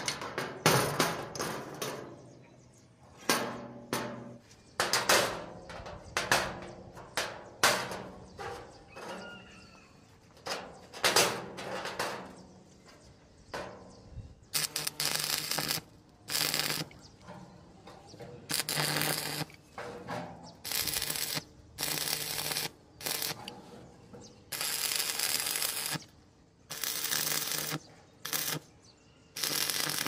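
Sharp metallic knocks and clanks of steel pieces on a steel welding table, then, from about halfway in, a run of short bursts of stick (arc) welding crackle, each lasting around a second, as flat steel strips are tack-welded together.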